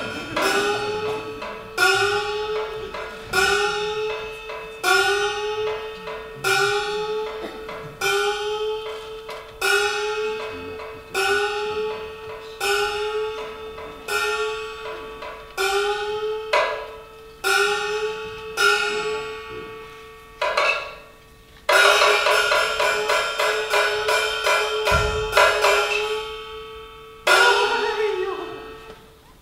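Kunqu opera percussion: a gong struck steadily about every second and a half, each stroke ringing with a slight upward bend in pitch. About two thirds of the way through it breaks into a fast run of strokes, then returns to single strokes near the end.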